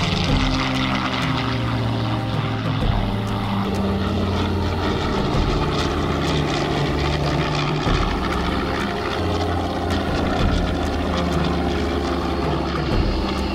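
Propeller aircraft engines running steadily, the pitch of their drone shifting a few times.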